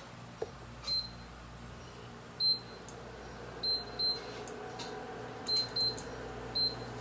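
Induction cooktop's touch-control panel beeping seven times, short high beeps of the same pitch, as its buttons are pressed. A faint hum comes up from about halfway through as the cooktop starts running.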